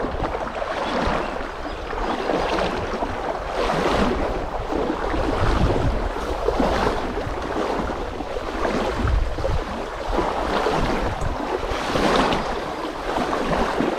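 River water rushing and splashing in uneven surges about a second apart, with wind rumbling on the microphone.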